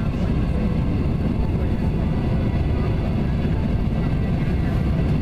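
Steady cabin noise of an Airbus A350 rolling along the runway just after landing: its Rolls-Royce Trent XWB engines running with a low, even rumble from the ground roll.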